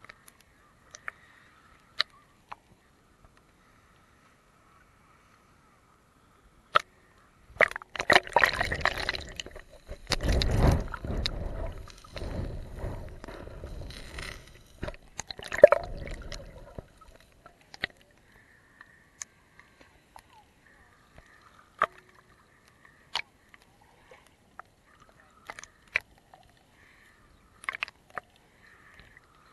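Seawater sloshing and gurgling against a camera dipped at the sea surface, loud for about nine seconds midway as it goes under. Before and after, only scattered small clicks and ticks.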